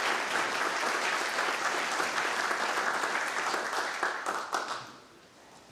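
Audience applauding, the clapping dying away near the end with a few last separate claps.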